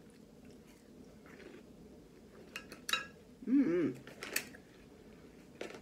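A fork set down on a ceramic plate: a few sharp clicks and clinks spread over a couple of seconds, with a brief murmur from a full mouth between them.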